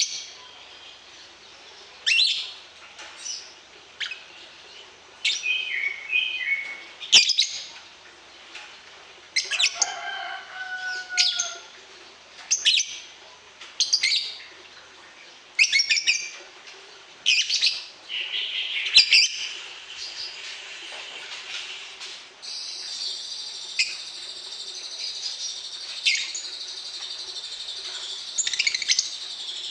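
Songbird calling in short, sharp chirps every second or two. From about two-thirds of the way through, a continuous buzzing trill runs under the calls, with a faint steady hum beneath.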